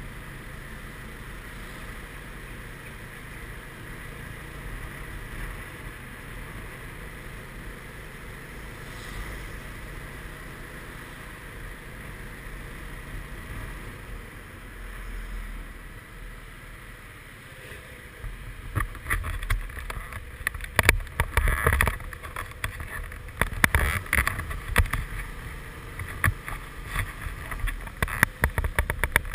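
Riding noise from a Suzuki Burgman 400 maxi-scooter under way: its single-cylinder engine running steadily with road and wind noise. From about two-thirds of the way in, wind buffets the microphone in loud, irregular gusts.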